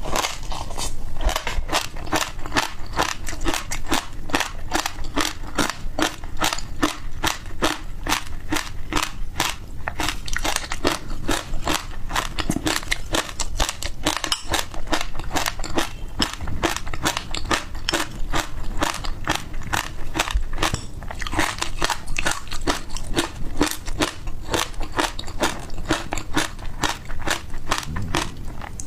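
Close-miked chewing of frozen passion fruit: rapid, sharp crunches, about four a second, keep on steadily throughout.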